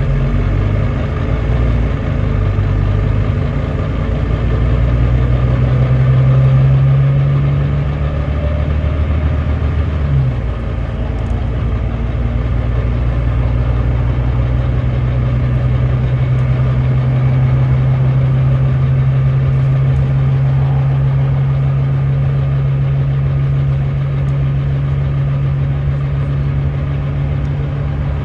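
Volvo D9B 9.3-litre diesel engine of a Volvo B9TL double-decker bus pulling steadily under load, heard from on board, a hill climb being listed just before. About ten seconds in its pitch dips slightly and the level drops a little, then the engine holds a steady drone.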